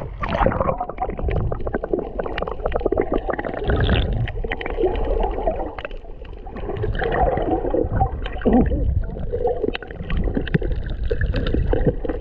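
Water gurgling and bubbling as heard by a submerged camera, muffled and low, with many scattered small clicks and knocks.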